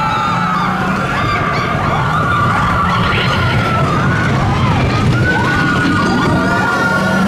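Mine-train roller coaster running on its track: a steady low rumble under a long high wheel squeal, with riders screaming and whooping throughout.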